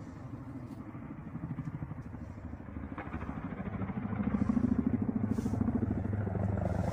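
Military helicopter flying overhead: rapid rotor chop over a low engine hum, growing louder about four seconds in as it comes closer.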